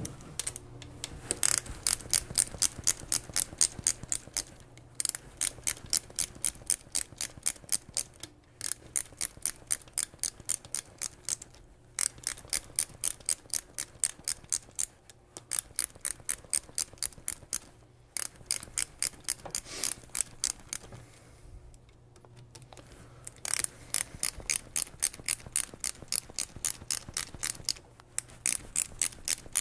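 Quarter-inch drive ratchet clicking as it runs lifter block bolts down into an engine case: quick runs of sharp clicks, about five a second, broken every few seconds by short pauses.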